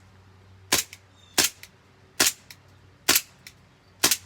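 Gas-powered Detonics .45 replica airsoft pistol firing five single shots, slightly under a second apart, each sharp crack followed by a fainter tick.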